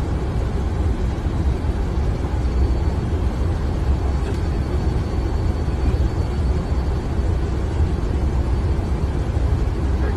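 Steady flight-deck noise of an Airbus airliner on final approach: airflow and engine rumble, heaviest in the low end, with a faint high whine over it.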